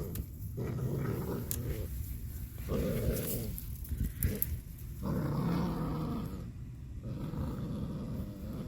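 American Pit Bull Terrier puppies growling in several long rough bouts with short breaks between them, a play growl.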